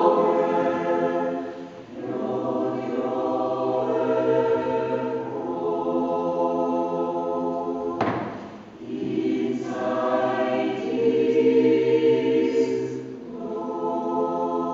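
Mixed choir of men's and women's voices singing an Advent yodel (Jodler) in sustained chords, with two short breaks between phrases.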